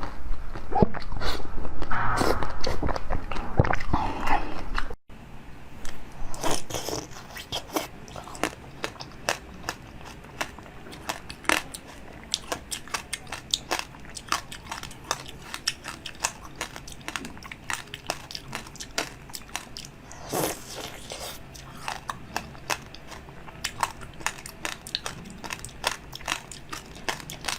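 Close-miked eating: a person biting and chewing crunchy food, with many sharp crunches and crackles. The first few seconds are louder and fuller, then after a sudden cut the crunching goes on more quietly.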